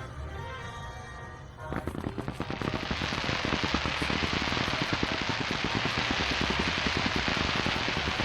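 Music, then a little under two seconds in a dense crackling of fireworks breaks out: a rapid, continuous stream of small pops that gets louder and keeps going over the music.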